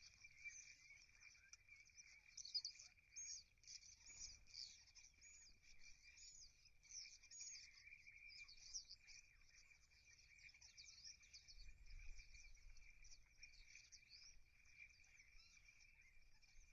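Faint, dense chatter of a flock of small birds: many quick overlapping chirps over a steady background twitter.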